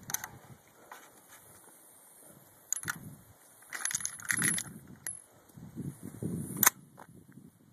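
Metallic clicks, clacks and rattles of an AR-15's action being worked by hand to clear a jammed cartridge: the charging handle and bolt are pulled and released several times, with a cluster of rapid clicks about halfway through. The loudest sharp clack comes late.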